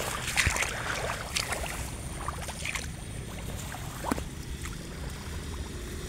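Footsteps wading through a wet rice paddy, with water and mud sloshing and rice plants brushing past.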